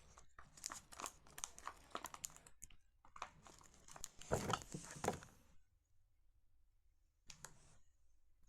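Paper and adhesive tape crinkling and tearing as a handmade paper squishy is worked: a run of short crackles for about five seconds, then quiet apart from one brief crinkle near the end.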